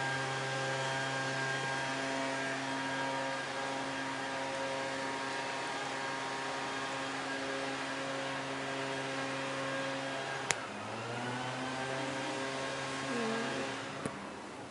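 An engine running steadily at one pitch. It drops slightly in pitch after a sharp click about ten seconds in, then fades out near the end.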